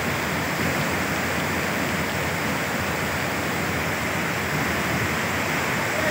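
Heavy monsoon rain and rushing floodwater: a steady, even rushing noise that holds without a break.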